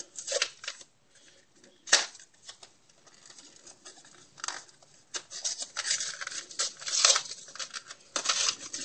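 Hands handling and working on a disposable camera's plastic body: scattered sharp plastic clicks, one about two seconds in, then a longer stretch of rubbing and scraping in the second half.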